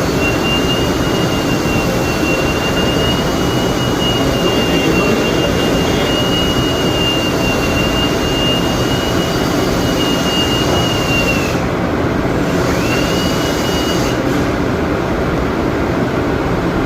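Duct-cleaning machinery running with a loud, steady rush and a thin high whine; the whine dies away about eleven seconds in and winds back up about a second later.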